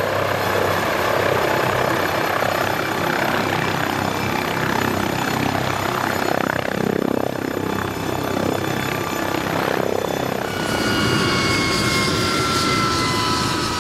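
MD 902 Explorer NOTAR helicopter hovering low and setting down, its rotor and turbines running steadily. About ten seconds in, a whine of several tones begins slowly falling in pitch as the engines start to wind down after landing.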